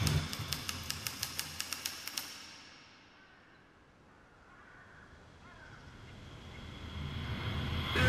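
Typewriter keys clacking, about four or five strikes a second for the first two seconds, then dying away. A low rumble then swells steadily louder toward the end.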